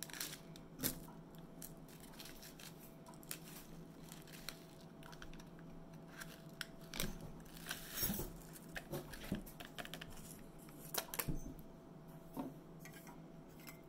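Small paper tea sample packet being torn open and handled: scattered crinkles, rustles and light taps, a little louder around the middle and two-thirds of the way through. A faint steady hum runs underneath.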